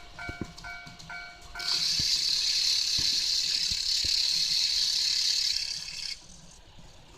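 Electronic warning chime of a Tomix N-gauge level crossing, ringing in a quick alternating two-tone pattern about twice a second. About a second and a half in, an N-gauge model train runs past close by with a loud, steady whirring rush that lasts about four and a half seconds and drowns out the chime, then stops suddenly.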